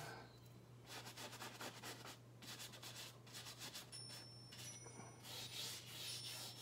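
Bristle paintbrush scrubbing oil paint across a stretched canvas in short repeated strokes, faint, blending the paint.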